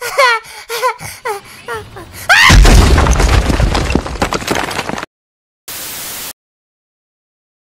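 Short squeaky high-pitched cartoon vocal sounds, then about two seconds in a loud cartoon explosion: a blast with a deep rumble that runs for about three seconds and cuts off suddenly. After a brief silence comes a short burst of TV static hiss.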